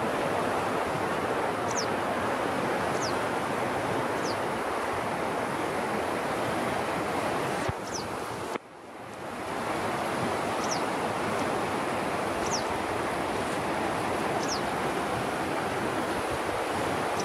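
River rapids: a steady rush of water over rocks, with short high downward-sliding chirps repeating about every second and a half. The rush drops out briefly about halfway and swells back.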